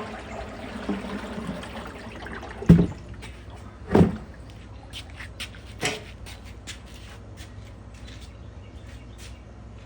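Parts of a washing machine being handled during repair. A scraping rustle comes first, then two heavy thuds about a second apart, then a run of light clicks and taps.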